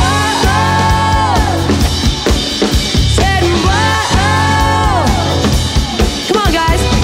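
Live band playing loud: drum kit and bass, with a pitched lead line that bends up, holds, then falls back, three times.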